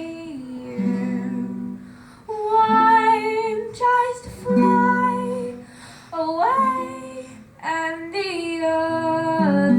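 A young girl singing long, held notes that slide between pitches, with no clear words, over acoustic guitar. The voice comes in several phrases with short breaks between them.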